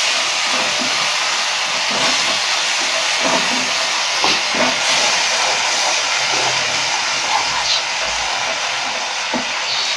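Onions and capsicum in tomato-and-soy sauce sizzling steadily in a nonstick frying pan while being stir-fried, with short scrapes and taps of the stirring spoon against the pan now and then.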